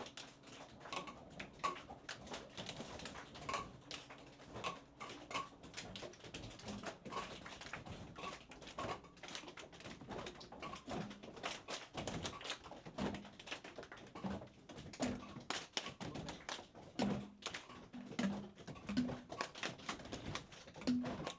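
Irregular light clicks and taps of hands working with lab equipment and plastic containers at a bench, with a few short low tones near the end.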